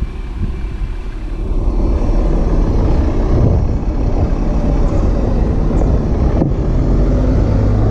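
Loud, steady low rumble of a vehicle engine, growing louder about a second and a half in and then holding steady.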